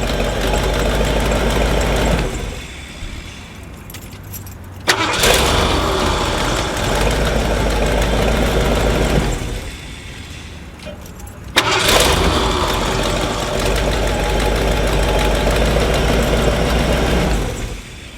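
V8 engine being cranked over by its starter in three long bursts of several seconds each, the second and third beginning with a sharp click and each cutting off abruptly; a hard start, which was expected from fuel leaked in by the old fuel pressure regulator.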